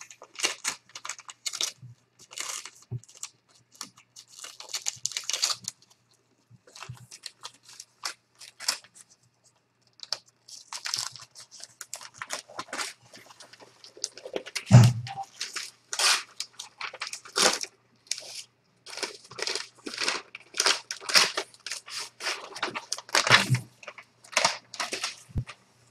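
Gift-wrapping paper being torn and crumpled in irregular rustling bursts, with a dull knock about halfway through and another near the end.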